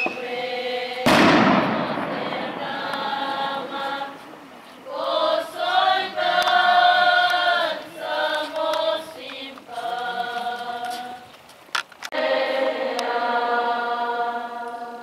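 Several voices singing together in long sustained phrases, with one loud firework bang about a second in that rings off over a second.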